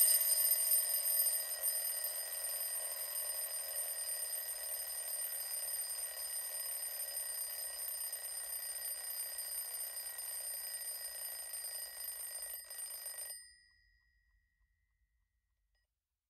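Alarm clock sound effect ringing steadily, signalling that a five-minute countdown timer has run out; it cuts off suddenly about 13 seconds in.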